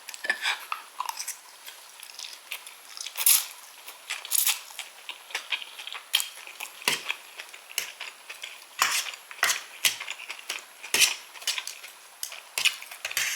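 A person chewing and eating a meal of baked scallops and pasta close to the microphone: irregular wet mouth clicks and smacks, a few louder ones, at a slow uneven pace.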